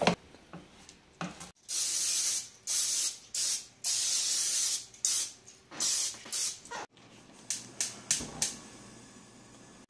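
Aerosol cooking-spray can hissing in several short bursts onto a nonstick frying pan. Near the end, a gas stove's igniter clicks rapidly several times as the burner knob is turned.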